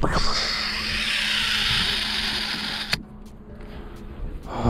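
Baitcasting reel spool whirring as line pays out during a cast, an even high whizz lasting about three seconds and stopping abruptly as the spool is halted.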